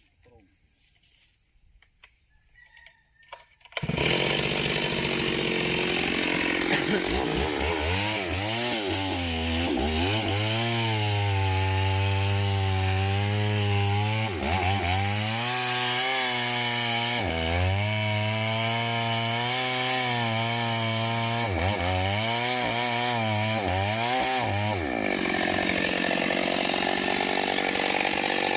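Mini chainsaw starts up suddenly about four seconds in and runs loud. Its engine speed drops and picks back up several times, as the chain loads and frees in the wood of a large kapok trunk being felled.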